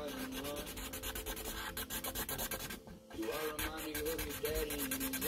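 Yellow Sharpie marker scrubbing back and forth on paper in quick strokes as a drawing is coloured in, with a short pause about three seconds in. Music plays underneath from a smart speaker.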